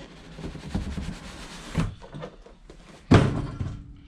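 The RC car's box and packaging being handled and opened: a stretch of rustling and sliding, then a single loud thump about three seconds in.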